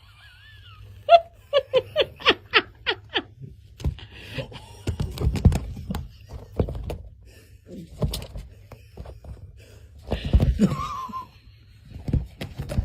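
A person laughing in a quick run of about eight short, even bursts, followed by scattered knocks and further laughing or voice sounds.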